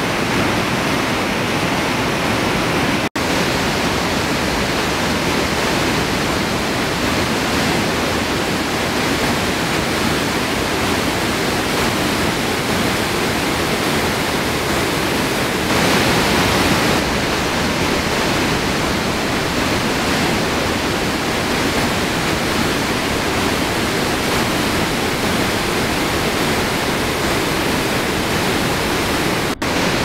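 Steady rush of a mountain waterfall and its torrent, a loud even noise, broken by two momentary dropouts about three seconds in and just before the end.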